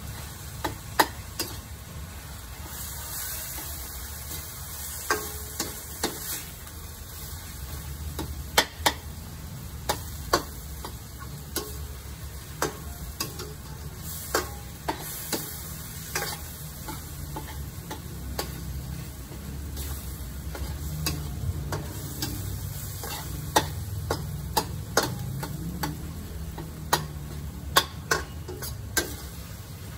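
Metal spatula clinking and scraping against a stainless steel wok as meat and tomato are stir-fried, in irregular knocks about once a second over a faint sizzle and a steady low hum.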